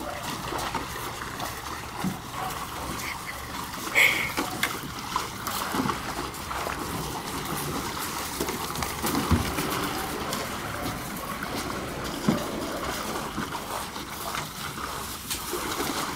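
Water splashing and sloshing in plastic kiddie pools as a crowd of dogs wade in them with their heads down in the water. There are many small splashes throughout and one brief sharp sound about four seconds in.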